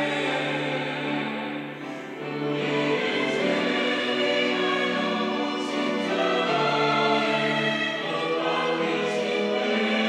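Mixed church choir of women and men singing a hymn anthem in harmony, holding long sustained chords, with a brief dip in loudness about two seconds in.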